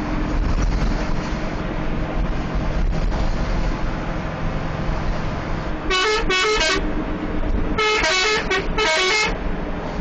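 Bus engine and road noise running steadily, then about six seconds in a telolet multi-tone bus horn plays four short melodic blasts in two pairs, its notes stepping up and down.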